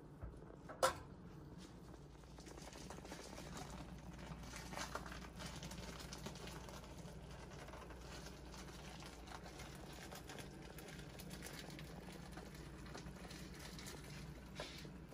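Spinach in cream sauce simmering in a nonstick skillet, with a soft, steady bubbling and crackle as metal tongs turn the leaves. A single sharp clack about a second in, the tongs against the pan.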